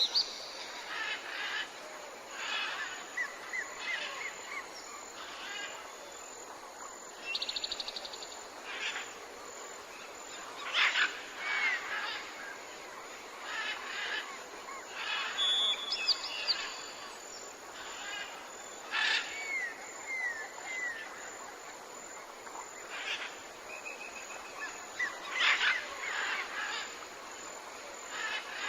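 Tropical jungle ambience: many birds calling over one another against a steady hiss of insects and forest noise, with short chirps, trills and fast rattling calls scattered throughout.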